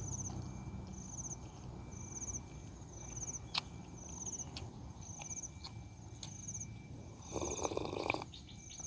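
An insect chirps in a steady rhythm, short buzzy trills a little more than once a second, with a few sharp mouth clicks from chewing. Near the end comes a brief slurp as broth is sipped from a coconut-shell bowl.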